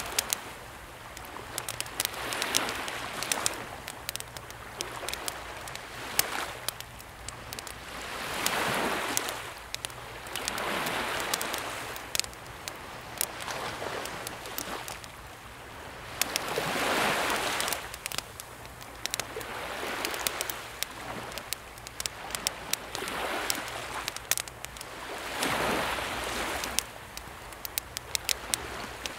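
Wood campfire crackling with frequent sharp pops, over calm sea waves washing gently onto the shore in soft swells every few seconds.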